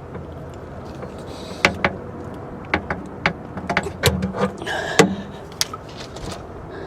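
Irregular sharp metal clicks and clacks of wire cutters being worked to crimp a heavy-duty terminal onto a flexible battery cable, starting about a second and a half in, with a brief scrape about five seconds in.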